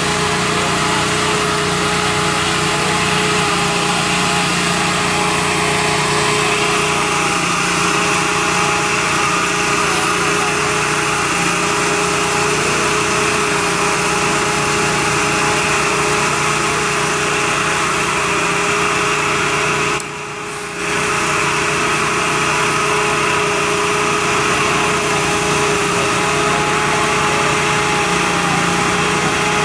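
An engine running steadily at the fire scene: a constant motor drone with a couple of steady hum tones. It dips briefly for about a second about two-thirds of the way through.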